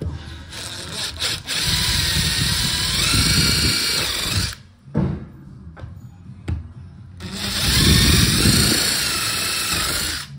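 Power drill boring screw holes through the lugs of brass shower wall-plate fittings into a multi-panel wall board. There are two runs of the drill's whine, each about three seconds, its pitch dipping and recovering as the bit bites. Short knocks come between them.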